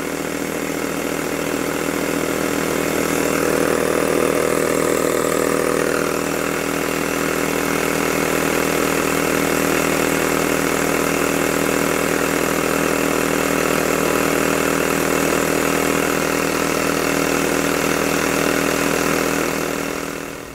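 Electric air compressor running steadily, a little on the loud side, with a Jowitt poppet-valve model steam engine running on its compressed air; the steady compressor sound stops suddenly right at the end.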